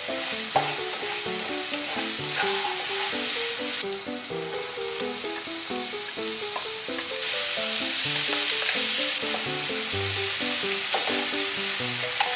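Diced carrot sizzling in butter in a frying pan, stirred and scraped with a spatula, with a few sharp clicks. Partway through, chopped onion, green pepper and mushrooms go into the pan and the frying carries on. Light background music with a picked-out melody plays under it.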